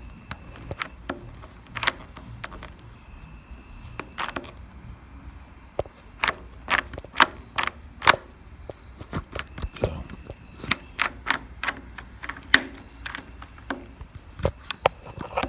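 Sharp clicks and clacks of a sliding door's latch mechanism being worked by hand, a latch that will not lock. A steady high chirring of crickets runs behind.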